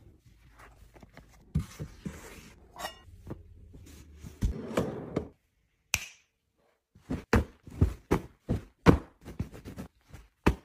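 Cloth rustling and soft knocks as clothing is pushed into a drawer, then a single finger snap. After it comes a run of sharp knocks and taps, about two or three a second.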